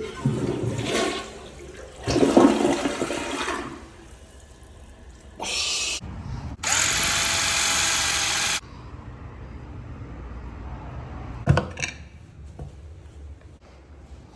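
Water rushing from a plumbing fixture in several separate spurts, the longest lasting about two seconds, as it is turned on and off. A sharp knock comes near the end.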